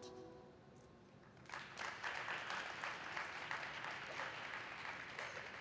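Audience applauding, starting about a second and a half in as the last note of the program music dies away.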